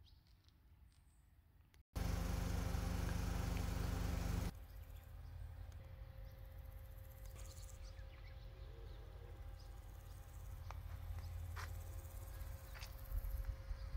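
Outdoor ambience with wind on the microphone: quiet at first, then about two seconds in a loud rushing noise starts suddenly and lasts about two and a half seconds, then settles to a steadier, quieter hiss with a faint steady hum.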